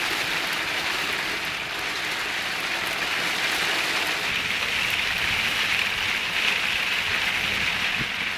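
Heavy rain drumming steadily on a vehicle's roof and body, heard from inside the vehicle during a storm.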